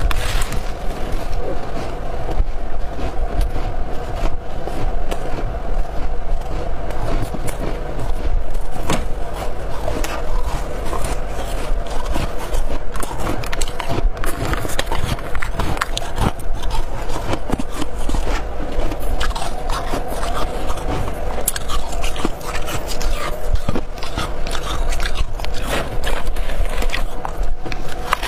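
Freezer frost and hard ice being bitten and crunched in the mouth, close up: a dense, unbroken run of crisp crackling crunches over a steady low hum.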